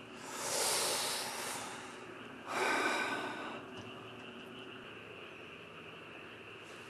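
A man's two long breathy exhales, the first right at the start and a shorter one about two and a half seconds in: sighs of disappointment after a missed bite.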